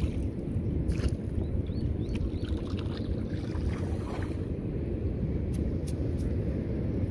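A steady low rumble around a small open boat, with a few short clicks and light splashes as the wet rope of a cast net is hauled in hand over hand.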